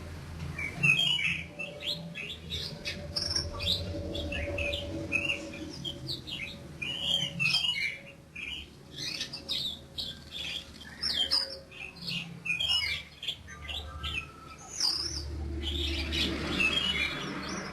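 Black-winged myna (jalak kebo) calling in a busy run of short, harsh squawks and chirps.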